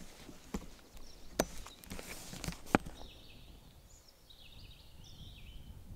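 Quiet countryside ambience: a few sharp clicks in the first half, then a small bird singing short chirping phrases from about halfway through, over a faint low rumble.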